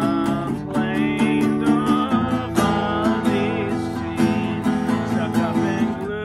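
Harmonica held in a neck rack, playing an instrumental break over a strummed acoustic guitar, with sustained, wavering reedy notes.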